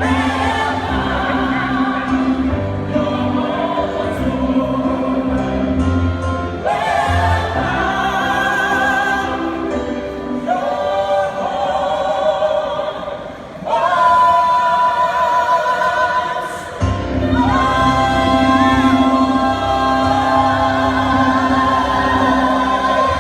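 Choir singing over a steady bass accompaniment, with long held notes in the second half.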